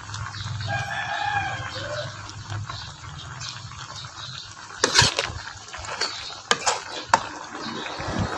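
A rooster crows in the background during the first couple of seconds, over the steady sizzle of sausages frying in oil in an aluminium pan. A metal ladle knocks sharply against the pan a few times in the second half, the loudest sounds in the stretch.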